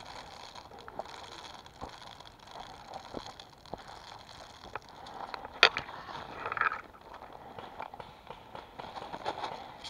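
Footsteps over twigs and leaf litter on a forest floor, with scattered light clicks and one sharp snap about halfway through.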